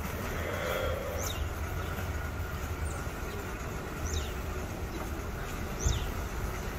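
Outdoor ambience: a steady low rumble, with a bird's short high call that sweeps downward, four times at intervals of a second or two. A single thump comes near the end.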